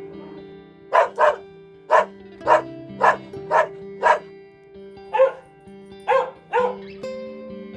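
A dog barking repeatedly, about a dozen short barks in irregular bunches, over soft background music with held notes.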